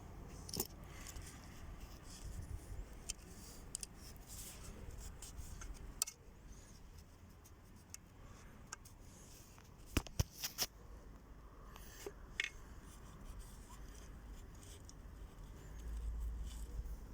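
Small metal engine parts handled on a bench: scattered light clicks, clinks and scrapes, with two sharper clicks about ten seconds in.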